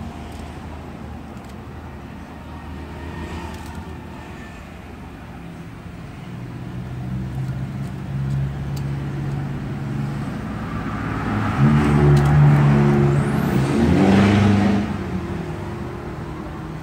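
A motor vehicle's engine passing by. It swells in the second half, is loudest a little past twelve seconds in, and fades near the end.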